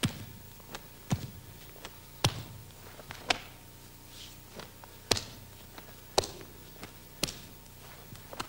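Sharp snaps and thuds from a karateka performing a Kyokushin kata, one roughly every second as each block, strike and step lands, with lighter taps between.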